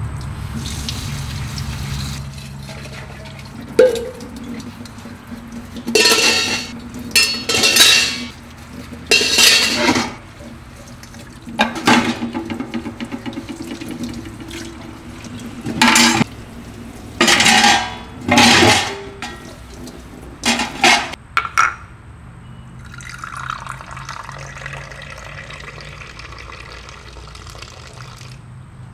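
Kitchen tap water running into a sink in several short gushes, with plates and dishes clinking, as dishes are washed. A softer steady hiss follows near the end.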